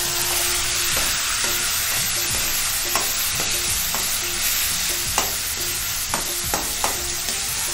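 Ground tomato paste sizzling in hot oil tempered with mustard seeds and asafoetida, in an aluminium kadai, as it is stirred. A wooden spatula knocks and scrapes against the pan about a dozen times over the steady sizzle.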